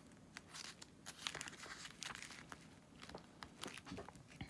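Faint rustling and crinkling of paper being handled, in a scatter of short, sharp sounds.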